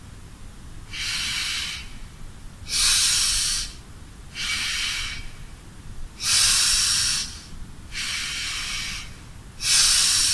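Bhastrika pranayama breathing: slow, deep breaths drawn in and pushed out through the nose in an even rhythm. Six hissing breaths, each about a second long, alternating softer and louder, with short pauses between them.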